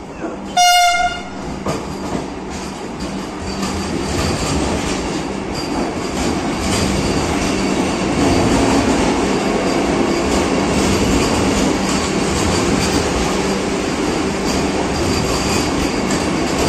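A train horn gives one short blast about half a second in, then the running noise of a train builds over the next few seconds and goes on steadily.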